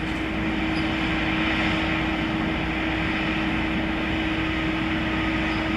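Steady mechanical hum with one constant low tone under an even wash of noise, swelling slightly over the first second and then holding steady.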